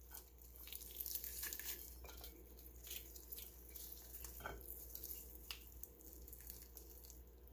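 Hands tearing apart a roasted half chicken: faint, irregular crackling of the crisp, charred hoisin-glazed skin and tearing of the meat as it is pulled open.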